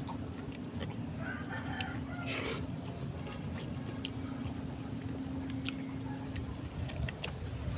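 A rooster crowing once in the background, over a steady low hum and scattered short clicks.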